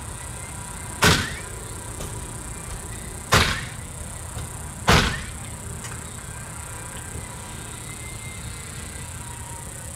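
Three sharp strikes of nails being driven, about two seconds and then a second and a half apart, over faint background music.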